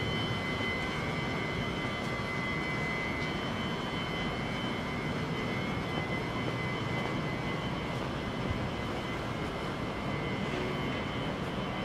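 Kintetsu 22600-series and 22000-series limited-express electric train standing at the platform: a steady hum from its onboard equipment with a thin, steady high whine over it.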